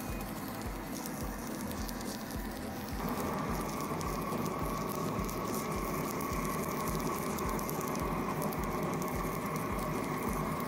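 Stick-welding arc crackling and sizzling steadily as a nickel-iron rod lays a bead joining a mild steel plate to a cast iron brake drum. About three seconds in it becomes louder and steadier.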